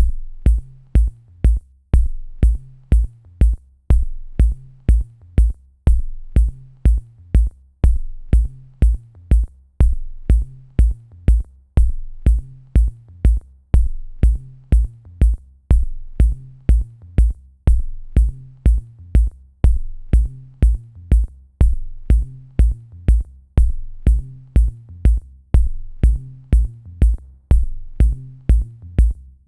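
Electronic background music with a steady drum-machine beat: kick drum and hi-hat at about two beats a second over a repeating bass line.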